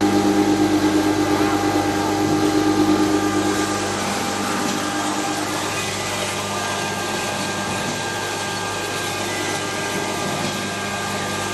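Fine grinder (pulverizer) machine running with a steady hum over a broad hiss. For the first three seconds or so the level pulses rapidly, then it settles to an even run.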